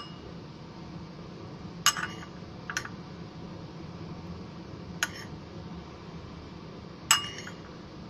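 Metal spoon clinking against ceramic bowls while spring onions are scooped and sprinkled onto soup: four sharp taps a second or two apart, the last ringing briefly, over a low steady hum.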